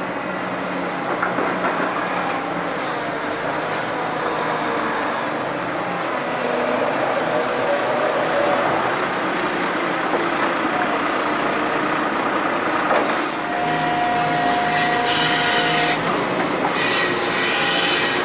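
Hydraulic excavator working: its diesel engine runs steadily under load as it digs and loads soil, and over the last few seconds a high metallic squeal and scraping come in.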